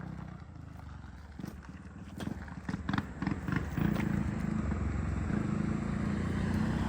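Yamaha Raptor 700 ATV's single-cylinder engine with a loud aftermarket exhaust, running at a low, loping idle that grows louder two to four seconds in and then holds steady. A few sharp clicks come through while it builds.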